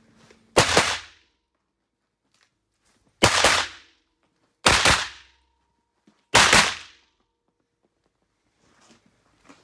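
Pistol fire in an indoor firing range: four loud bursts spread over about six seconds, each cracking sharply and ringing briefly off the range walls.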